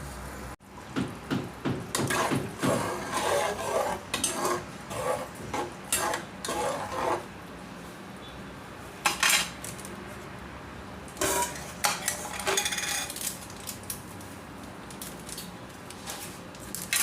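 A metal cooking utensil clinking and scraping against a pan, in quick repeated strokes for the first several seconds, then only a few scattered single clinks.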